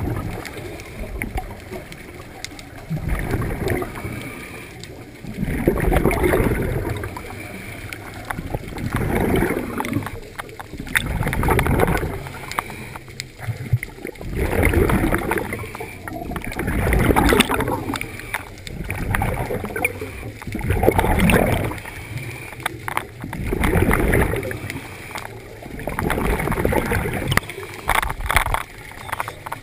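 Scuba divers breathing through their regulators underwater: a gush of exhaled bubbles gurgling past the camera about every three seconds, with quieter inhaling stretches between.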